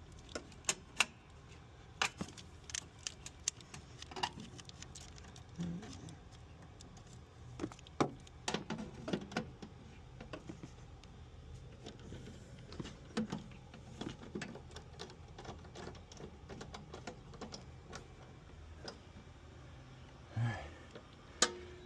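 Scattered light metallic clicks and scrapes of a screwdriver and copper wire against a breaker panel as a 12-gauge ground wire is fed onto the ground bar and tightened down.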